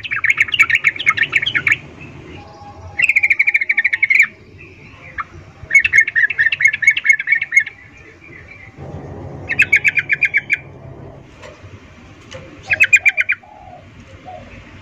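Yellow-vented bulbul (trucukan) calls: five bursts of rapid chattering chips, each one to two seconds long, with short pauses between them. This is the female's "ngecuplik" call to a male, used as a lure to set males singing.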